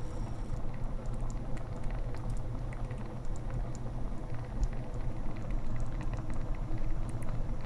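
A large pot of ghormeh sabzi, a thick Persian herb and meat stew, simmering slowly on low heat. Small irregular bubble pops sound over a steady low hiss.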